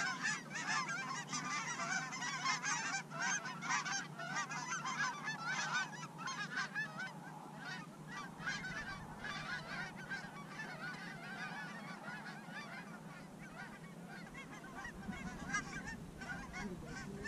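A large flock of geese honking overhead: a dense chorus of overlapping calls that thins out after about seven or eight seconds.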